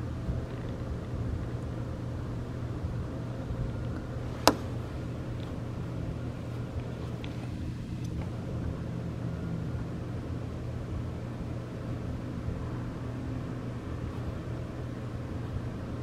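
Steady low rumble of city traffic, with a single sharp click about four and a half seconds in.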